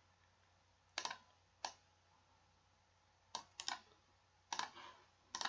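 Computer mouse clicking: about eight short, sharp clicks in irregular groups, two single clicks followed by quick runs of two and three.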